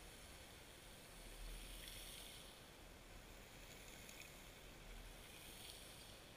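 Faint underwater ambience picked up by a GoPro camera in its waterproof housing on a pebble seabed: a steady low hiss, with two soft surges of water movement, one about a second in and another about five seconds in.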